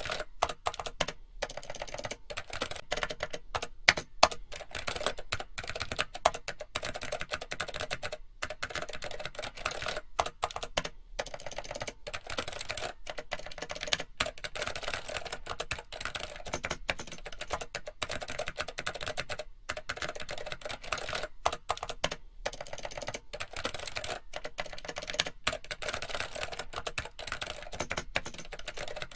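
Computer keyboard typing: a rapid, continuous stream of keystroke clicks with a few brief pauses.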